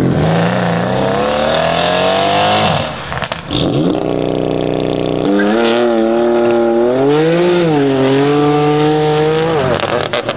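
Twin-turbo V8 of a Mercedes-AMG C63 S Estate with decat downpipes and a full titanium iPE exhaust, revving hard. The engine note climbs for about two and a half seconds, drops sharply with a few pops, then climbs again through a longer pull and cuts off near the end with more crackles.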